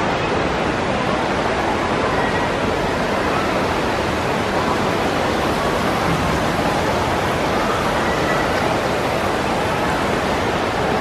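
Steady, even noise of a large indoor water-park hall: running water from slides and pools blending with faint distant voices.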